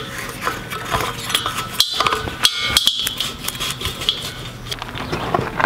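Scattered clicks and knocks of metal and plastic fittings being handled as a propane regulator hose is fitted to a tank's valve.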